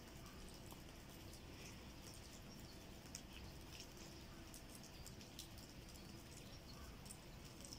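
Near silence: faint outdoor ambience with a low hum and a few faint, short, high ticks scattered through.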